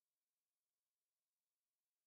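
Near silence: a faint, even digital hiss with nothing else.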